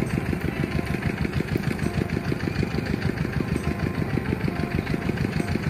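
An engine running steadily at idle, a fast, even low thudding that continues without change.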